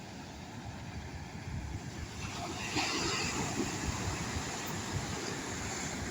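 Surf washing on the beach, with a wave breaking and its rush growing louder about two seconds in, and wind buffeting the microphone.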